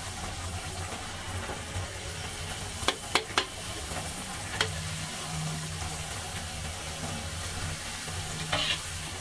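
Pooris deep-frying in hot oil in a kadhai, the oil sizzling and bubbling steadily as they are pressed down with a perforated steel ladle. Three quick metallic clicks come about three seconds in, with one more a second and a half later.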